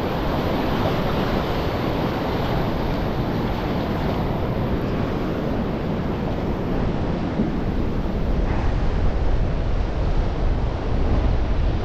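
Heavy sea swell surging and washing in. Wind rumbles on the microphone, gustier in the second half.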